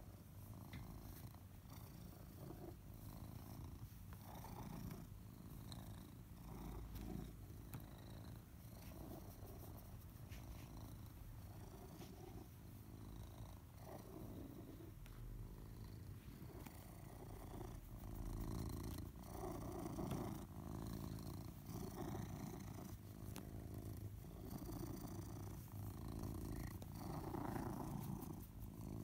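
Tuxedo cat purring close up, a steady low purr rising and falling with each breath, louder in the second half.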